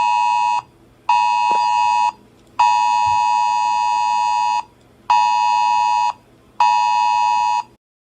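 Phone Wireless Emergency Alert attention tone: a loud two-note beep near 1 kHz sounding in the alert cadence. There is a short beep, a one-second beep, a two-second beep, then two one-second beeps, with half-second gaps between them.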